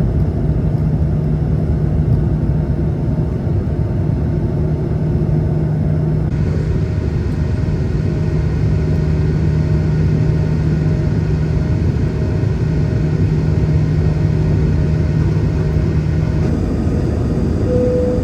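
Airbus A220-300 cabin noise heard from economy: its engines make a steady rumble with a constant hum underneath. A short steady tone sounds near the end.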